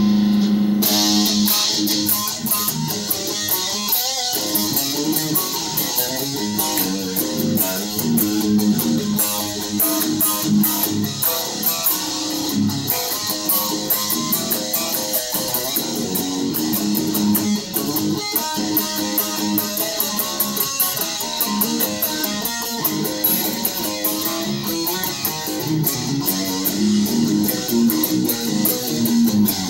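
Electric guitar being played in an unbroken improvised jam, notes changing continuously.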